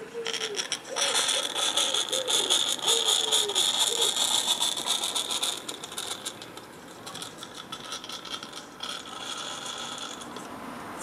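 Roundhouse 'Karen' 16 mm scale live-steam locomotive running along the track, a rapid rattling clatter of exhaust beats and wheels, loudest about a second in and falling away after about five seconds. A pigeon coos repeatedly in the first few seconds.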